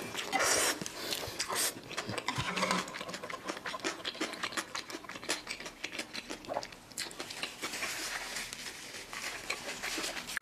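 Close-miked ASMR eating sounds: a short slurp of stir-fried rice noodles just after the start, then chewing with many small wet mouth clicks.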